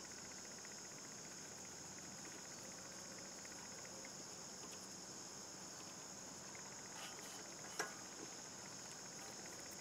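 Crickets chirring steadily, a faint continuous high-pitched drone, with one faint click about eight seconds in.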